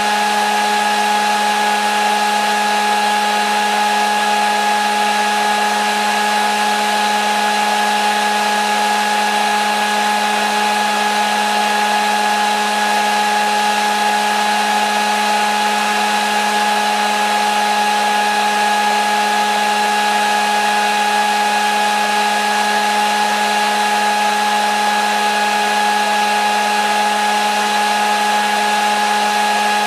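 Hair dryer running steadily: a constant rush of blown air over an even motor whine, with no change in speed or pitch.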